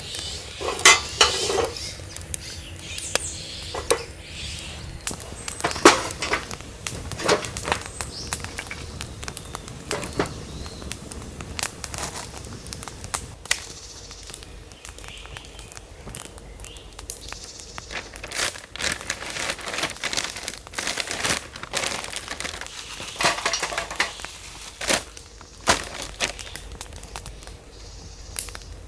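Camp gear being handled up close: irregular clicks, knocks and crinkling, with a few sharper knocks standing out.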